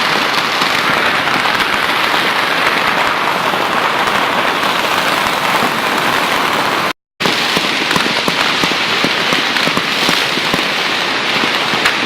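Dense, continuous crackling of many firecrackers and fireworks going off all around at once, merging into a rain-like hiss with countless small pops. The sound cuts out completely for a moment about seven seconds in.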